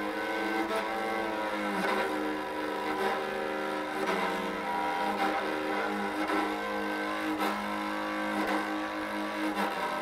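Bass jouhikko, a bowed lyre, bowed continuously: a steady drone string sounds under a melody whose notes change about every second.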